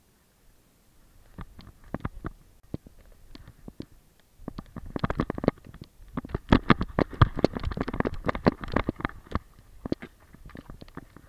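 Handling noise from a GoPro strapped to a Weimaraner's back in a Fetch harness: the camera mount rubbing and knocking against the harness and the dog's body as the dog moves, an irregular run of scrapes and knocks with low rumble. It starts about a second in and is busiest in the middle.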